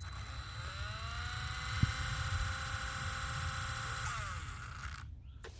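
Electric motors of an F03 RC helicopter whining as they spin up about half a second in, running steadily, then winding down and stopping near the end, after the throttle is unlocked. There is a brief knock partway through.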